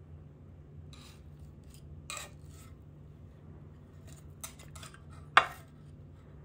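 A utensil scraping and clinking against a square nonstick frying pan as a rolled egg omelet is served out, a few short scrapes, then one sharp loud clink near the end.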